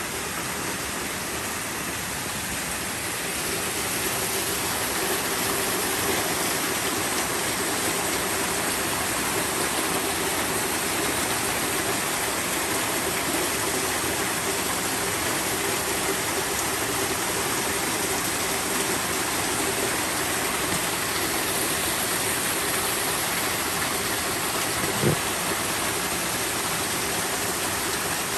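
Typhoon rainwater running off the road and pouring into the yard like a waterfall: a steady rush of water that grows a little louder a few seconds in. There is one brief knock near the end.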